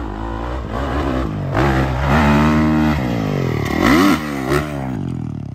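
Dirt bike engine revving. The pitch climbs about a second and a half in, holds high for about a second, then drops, with one quick sharp rise and fall near four seconds where it is loudest.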